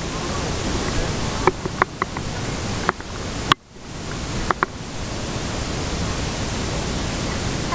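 Steady rushing of river water around an inflatable raft, picked up through an action camera, with several sharp clicks and taps scattered through the first few seconds. The noise dips briefly about halfway through.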